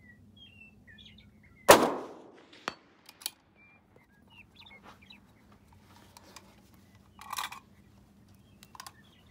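A single rifle shot, one sharp crack with a trailing echo off the hills, followed about a second later by a couple of faint sharp ticks and a brief rustle near the end. Small birds chirp in the background.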